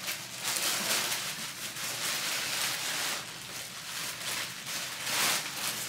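Rustling and crinkling of a gift bag and its wrapping as a gift is pulled out of it by hand, in several bursts.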